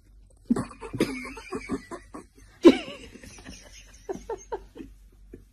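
A person laughing in short bursts, loudest about two and a half seconds in.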